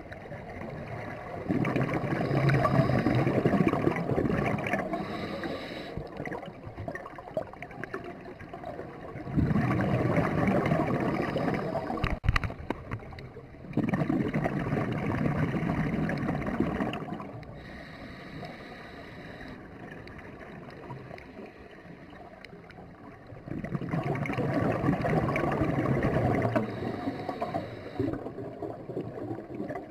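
Scuba diver's exhaled air bubbling out of the regulator underwater, in four bursts of about three seconds each, with a quieter hiss between breaths.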